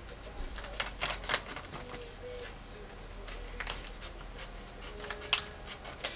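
White paper bubble mailer being handled and opened: irregular crinkles, rustles and sharp clicks of the stiff paper.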